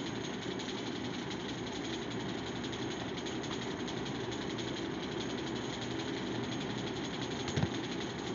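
Steady background hum and hiss, like a running motor or fan, unchanged throughout, with one short knock near the end.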